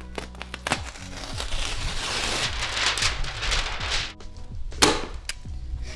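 Tyvek HomeWrap house wrap crinkling and crackling as it is pulled and folded around a window opening, with one sharper crackle a little before the end. Background music with a steady bass plays throughout.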